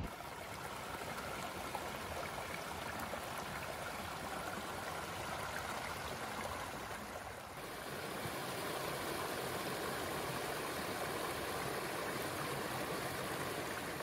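Small mountain waterfall, water rushing and splashing in a steady, even wash of noise that shifts slightly about halfway through.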